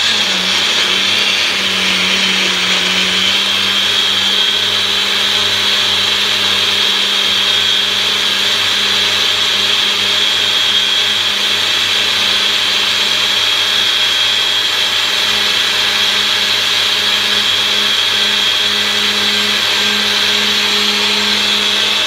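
Personal bullet-style blender with its cup pressed down on the base, its motor running steadily at full speed as it blends fruit and milk into a smoothie.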